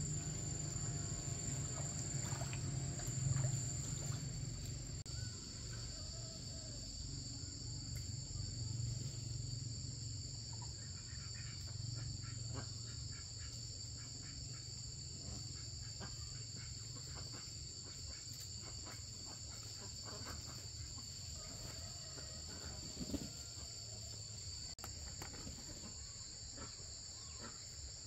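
Insects trilling steadily in two unbroken high tones, over a low rumble that fades somewhat after the first dozen seconds, with scattered light clicks and one sharper knock about two-thirds of the way through.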